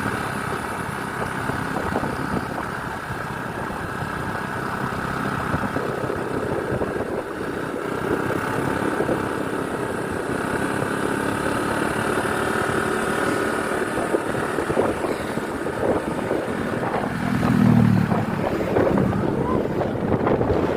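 Bus on the move: steady engine and road noise, with a brief louder low rumble near the end.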